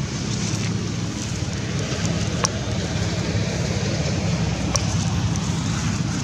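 Steady low rumble with a hiss over it, broken by two sharp clicks about two and a half and five seconds in.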